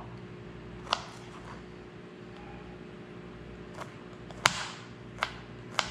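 Kitchen knife chopping garlic on a plastic cutting board: a handful of sharp, irregular knife strikes on the board, the loudest about four and a half seconds in, over a steady low hum.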